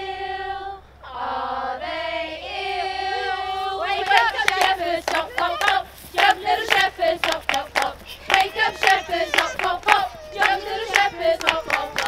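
Women and young children singing a song together, with long held notes at first; from about four seconds in, hand clapping in a steady beat joins the singing.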